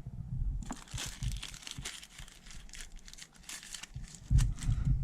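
Plastic crinkling and rustling for about three seconds, then a dull low knock of handling near the end.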